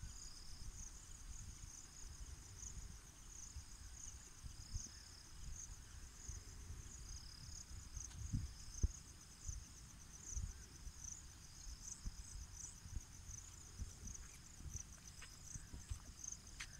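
A faint, steady chorus of insects chirring in a fast pulsing rhythm, high-pitched, with irregular soft low thumps from walking and camera handling underneath.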